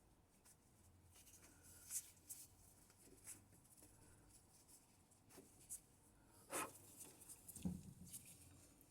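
Near silence broken by faint handling noises: scattered light clicks and taps, with a sharper knock a little past halfway and a duller knock soon after.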